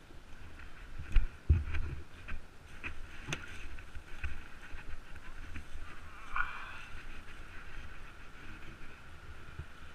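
Yamaha ATV engine running steadily at low speed, with several knocks and bumps in the first few seconds, the loudest about a second in, as the quad jolts over rough ground.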